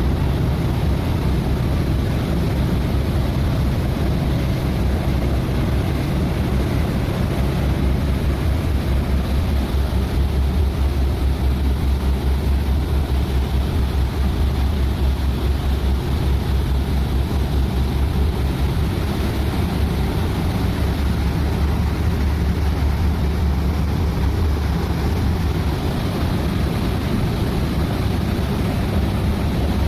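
Twin 1050-horsepower inboard engines of a motor yacht running steadily under way at about 1700 rpm: a deep, even hum. Propeller wash churns the water at the stern.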